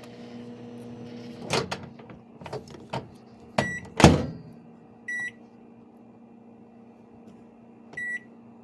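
Hamilton Beach microwave oven humming as it runs, stopping about a second and a half in with a few clicks. A loud thud follows, and three short high keypad beeps are spread through the rest: the buttons are still beeping, so the mute trick has not worked.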